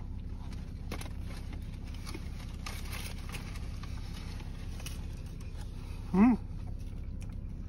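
A man chewing a mouthful of burger inside a car, with faint rustles and small handling noises over a steady low cabin rumble. About six seconds in he gives a short hummed 'mm'.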